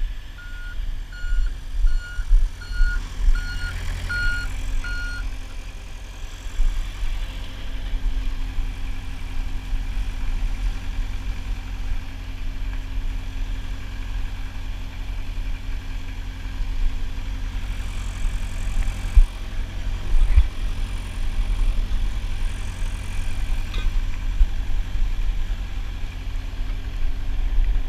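A heavy vehicle's reversing alarm beeping about twice a second for the first five seconds, over the steady low rumble of an idling truck engine. A couple of sharp knocks come about two-thirds of the way through.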